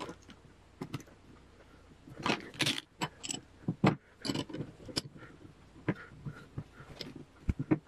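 Steel two-jaw gear puller being fitted over a ball bearing on a jointer cutter-head shaft to pull the bearing off: scattered light metal clinks and rattles of its jaws and screw, a dozen or so irregular taps.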